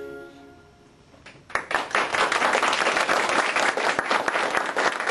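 A held musical note dies away at the end of a song, and after a short lull an audience breaks into applause about a second and a half in, many people clapping steadily.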